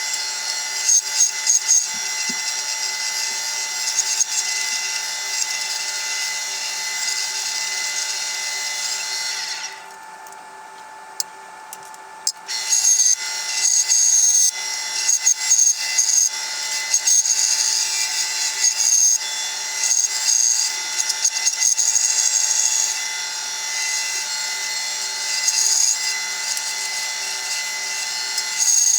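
A woodworking power tool running and working wood, with a steady machine hum under a rough hiss that surges irregularly as the wood is fed. The hiss drops away for about two seconds some ten seconds in, then comes back.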